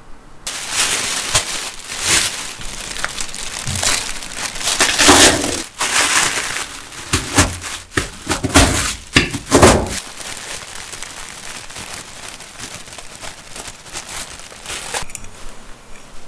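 Biscuits being crushed with a wooden rolling pin inside a plastic bag: crunching and crackling with the bag crinkling, in loud strokes for about ten seconds, then softer and steadier until it stops about a second before the end.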